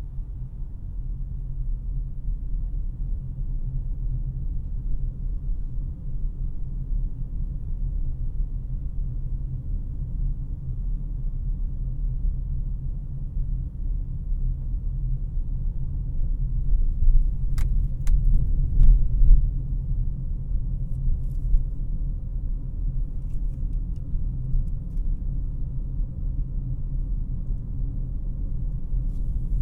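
Cabin noise inside a 2018 Honda CR-V LX on the move: a steady low rumble of road and engine. A few brief sharp clicks come a little past the middle.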